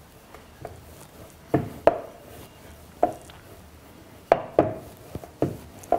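Wooden rolling pin rolling out stiff shankarpali dough on a round rolling board, with about seven short, irregular wooden knocks as the pin and board are worked.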